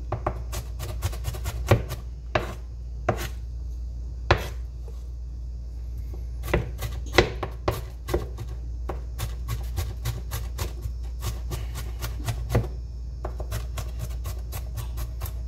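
Chef's knife rock-chopping onion on a plastic cutting board: the blade knocks on the board irregularly, spaced out at first, then in quicker runs from about six seconds in.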